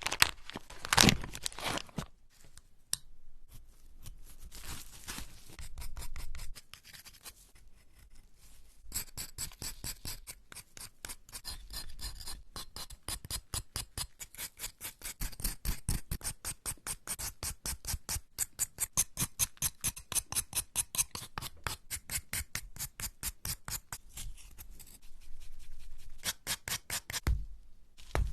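Hands-on crafting sounds: scraping and rubbing, then, from about nine seconds in, a long fast run of crisp clicks, several a second, that thins out near the end.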